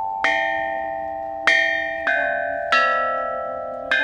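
Bronze chime bells (bianzhong) struck with mallets: five strokes at different pitches, each bell ringing on and slowly fading under the next.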